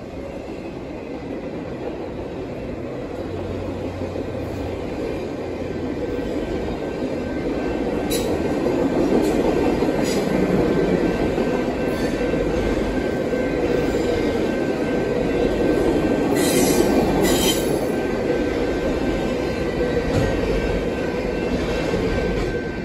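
Passenger cars of a train rolling past: a steady rumble of wheels on rail with a thin, steady wheel squeal and a few sharp clicks over rail joints in the middle.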